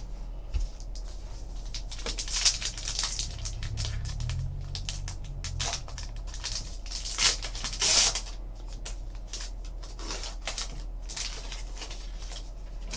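A trading card pack wrapper being torn open and crinkled by hand, with the cards slid out: irregular crackling rustles, the loudest a little past the middle.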